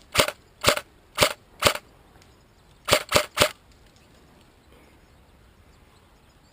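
Airsoft gun firing single shots: four about half a second apart, then a quick string of three.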